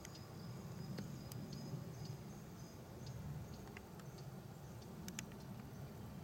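Faint high-pitched insect chirping in short broken pulses for the first few seconds, over a steady low rumble, with a few sharp light clicks.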